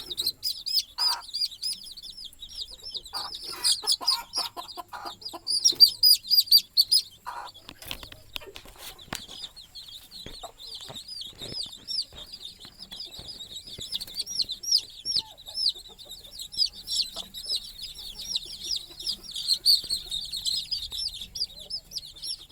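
Baby chicks peeping constantly in quick high chirps, with a mother hen clucking low a few times, mostly in the first third.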